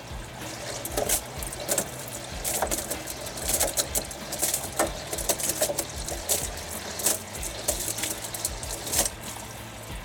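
Samsung Ecobubble front-loading washing machine tumbling wet towels in its drum with the door open: water sloshing, with irregular sharp splashes about once or twice a second over a steady low hum.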